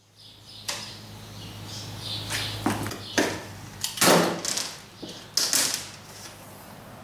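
Clear plastic tubing and a metal dipstick being handled and laid on a wooden table: several brief swishes and light knocks, over a steady low hum.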